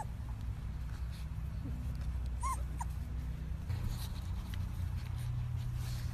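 Doberman puppy giving two short, high whimpers about two and a half seconds in, over a steady low rumble.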